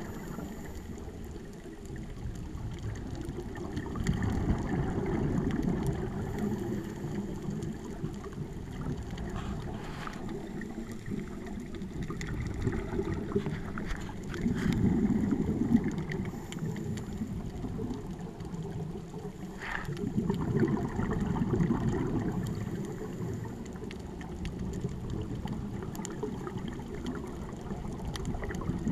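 Muffled underwater sound from a camera in a waterproof housing: a low rumble of bubbling from scuba divers' exhaled breath, swelling and fading every several seconds, with scattered faint clicks.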